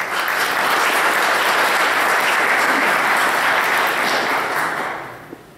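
Audience applauding: a full round of clapping that holds steady and dies away near the end.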